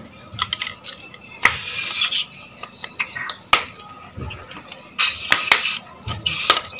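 Irregular metallic clicks and taps of hand tools working on the parts of a dismantled automated-manual-transmission actuator.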